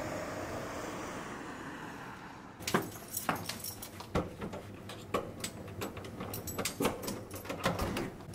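Outdoor traffic noise fades out, and about two and a half seconds in a quick, irregular run of key jangles and metal clicks begins: keys worked at an apartment door's lock and handle.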